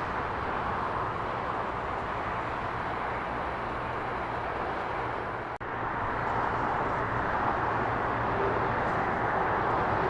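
Steady rushing jet engine noise from an airliner, cut by a brief dropout a little past halfway and slightly louder after it.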